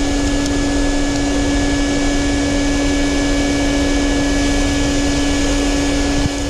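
Vacuum cleaner running steadily, a rush of air over a constant hum, its hose sucking up balsa core chips as a hook tool picks them out of drilled holes in a fiberglass deck.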